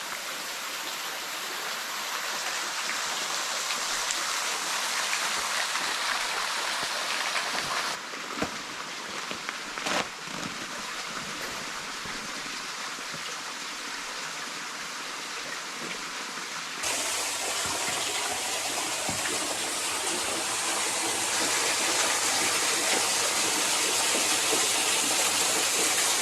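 Small creek waterfall running: a steady rush of falling water that changes abruptly in level and tone twice, with a couple of brief knocks about a third of the way in.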